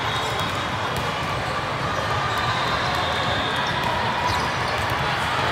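Steady din of an indoor volleyball tournament in a large hall: many voices from players and spectators blending together, with balls bouncing and being struck on the courts.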